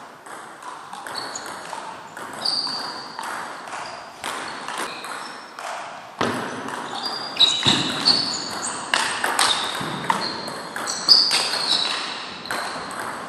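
Table tennis ball being hit back and forth: sharp clicks of the ball off the paddles and the table, each bounce with a short high ping. The hits come sparsely at first, then thicker and louder in a faster rally over the second half.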